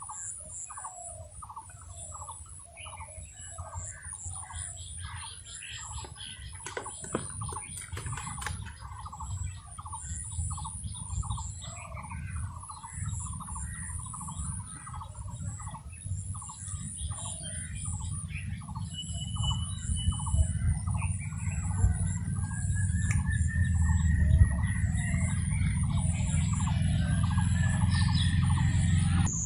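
Birds calling over and over in short calls, several a second, over a low rumble that grows louder toward the end.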